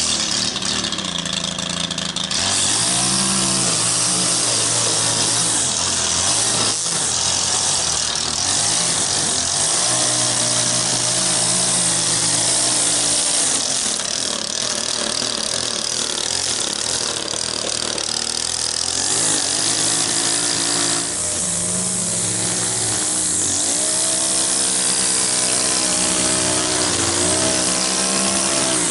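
Gas string trimmer running while cutting grass, its small engine revving up and down several times as the throttle is worked.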